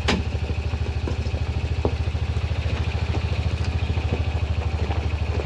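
Small utility-vehicle engine idling steadily with an even, rapid throb, and one sharp click just after the start.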